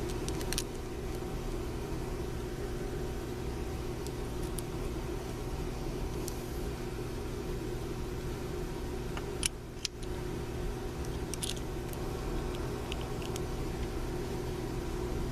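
A steady machine hum of low tones in the room, with a few light clicks of a screwdriver and small screws as grip screws are started on a revolver.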